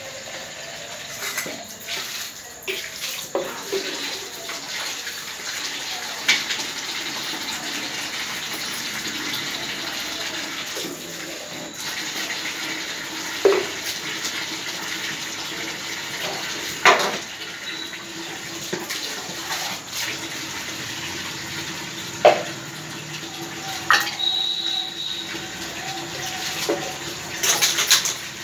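A cat lapping milk from a metal bowl: a steady wet, watery sound with a few sharp clinks or knocks, the loudest about halfway through and a few more near the end.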